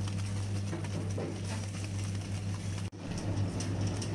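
Electric wet grinder running steadily with a low motor hum as its stone grinds chutney paste in the turning steel drum. The sound drops out for an instant about three seconds in, then resumes.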